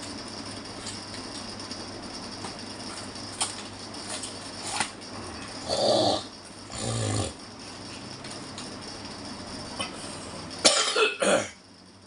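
A person coughing in several short bursts, loudest near the end, over a steady low hum.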